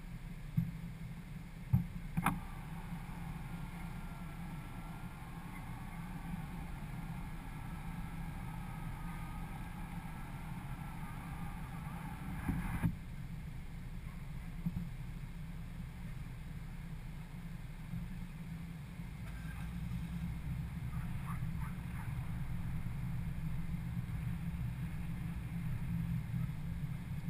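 Muffled low rumble of a 2011 Ford Edge driving slowly, picked up by a camera stuck to its roof. There are a few short knocks near the start and again around the middle.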